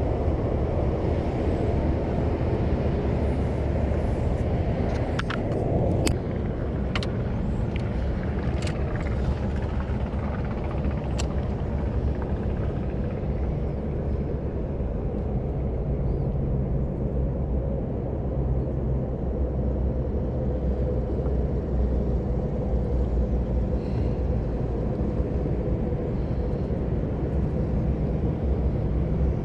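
Boat motor running steadily. A few sharp clicks come between about five and eleven seconds in.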